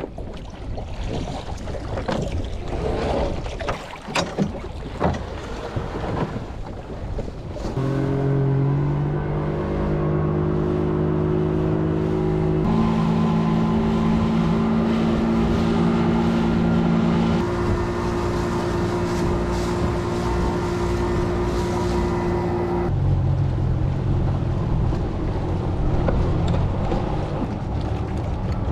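Wind and water noise with scattered knocks for about the first eight seconds. Then a small two-stroke outboard motor runs under way, its pitch holding steady and stepping to new speeds every few seconds, and dropping lower near the end.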